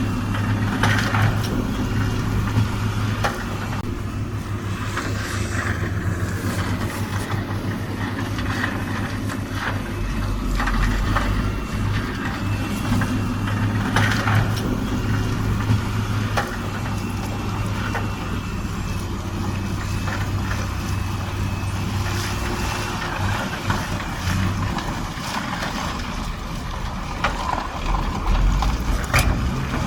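Shantui DH17C2 bulldozer's diesel engine running steadily under work, with a deep rumble swelling about a third of the way in and again near the end, and scattered sharp knocks and clatter.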